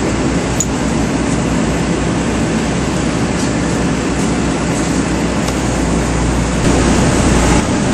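Steady, loud drone of heavy machinery running, with a low hum underneath that drops away just before the end.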